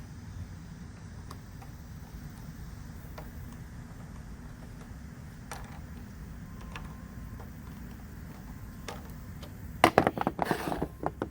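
Screws being reinserted into a lawn mower's air filter housing: sparse faint clicks of metal and plastic, then a short run of louder clattering knocks near the end.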